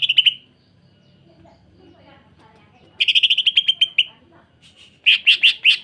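Green leafbird (cucak ijo) calling in harsh, rapid, closely packed notes like a sewing machine. A burst ends just as the sound begins, a fast rattling run of notes comes about three seconds in, and four loud, separate notes follow near the end.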